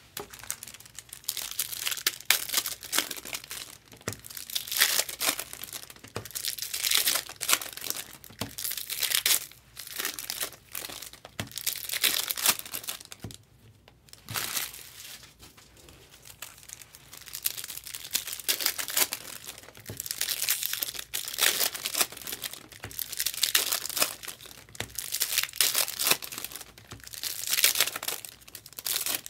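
Foil wrappers of 2024 Bowman Chrome Mega Box card packs crinkling and tearing as they are ripped open by hand, again and again in spells of rustling, with a brief pause about halfway through.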